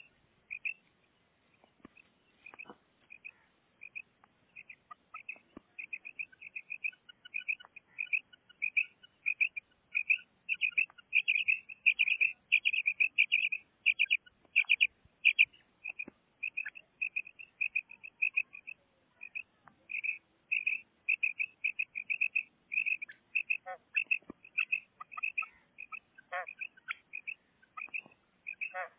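Female quail calling: a long run of short, clipped high notes repeated several times a second, growing louder and faster toward the middle, with a few fuller notes that reach lower near the end.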